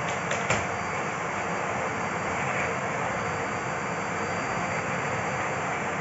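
Bosch BGS21X320 bagless canister vacuum cleaner running steadily, its motor giving a constant whooshing rush with a thin high whine over it. There are a couple of short clicks about half a second in.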